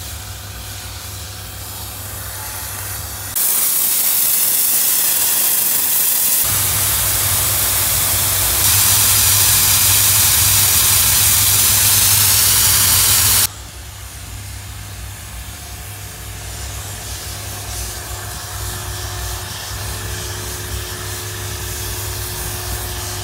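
Hot-water pressure washer cleaning paving: the machine runs with a steady low hum under the hiss of the water jet on the slabs. From about three seconds in to about thirteen seconds, the jet's hiss is much louder and drowns out the machine.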